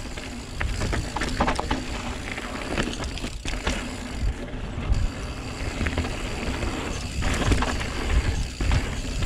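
Santa Cruz Megatower enduro mountain bike rolling fast down a dirt and gravel singletrack: a steady low rumble of tyres and moving air, with frequent short clicks and rattles from the bike over the rough ground.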